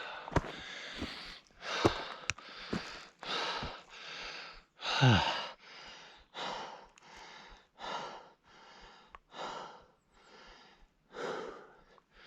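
A hiker breathing hard, with heavy exhalations about once a second, from the strain of a steep climb in thin mountain air. About five seconds in comes one louder, groaning sigh that falls in pitch. A few footsteps click in between.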